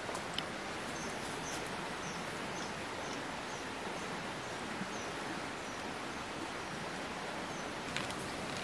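Forest ambience: a steady hiss, with a bird repeating a short, high, slightly falling chirp about twice a second for several seconds.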